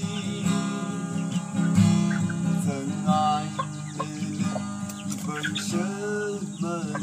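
Acoustic guitar strummed as accompaniment to a man singing, with chickens clucking close by.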